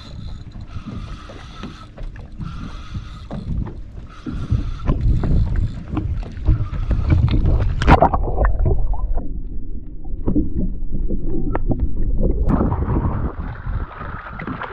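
Wind buffeting the microphone and water slapping a small boat's hull while a barracuda is fought on rod and reel. From about twelve seconds in, a barracuda splashes at the surface beside the boat.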